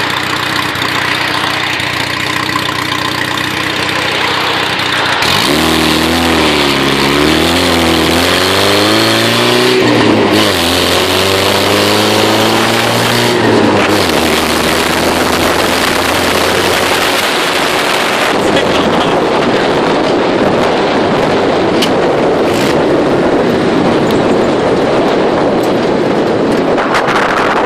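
1970 Opel GT's engine running. From about five seconds in it is revved up and down several times, then held steady, and from about eighteen seconds a steady rushing noise takes over.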